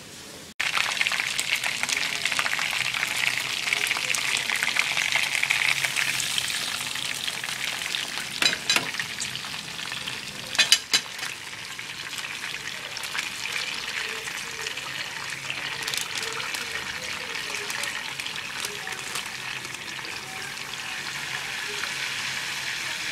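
Chicken pieces frying in oil in a nonstick frying pan: a steady sizzling, crackling hiss that starts suddenly about half a second in. A few brief, louder clicks come around the middle.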